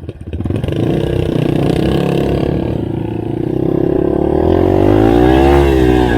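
Yamaha TT-R230 trail bike's single-cylinder four-stroke engine running under way, picking up about half a second in and then revving up and back down near the end.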